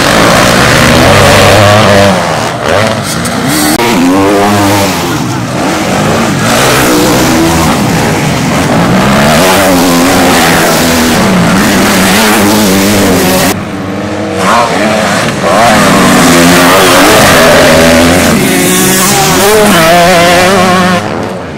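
Motocross bikes racing, engines revving hard and falling back again and again, the pitch rising and dropping as the riders open and close the throttle.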